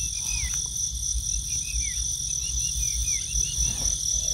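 Insect chorus: crickets trilling steadily at a high pitch, with short falling chirps repeating about twice a second and a low rumble underneath.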